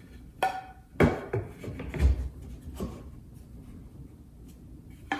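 Wooden 1x4 trim boards knocking and bumping against the cabinet corner as they are fitted into place by hand: about five short knocks in the first three seconds, the heaviest about two seconds in, and one sharp knock near the end.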